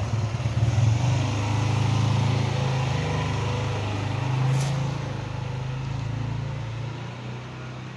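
Domestic cats growling in a low, drawn-out yowl that swells and fades without a break: the threat call of two cats squaring off in a fight. A brief sharp click about four and a half seconds in.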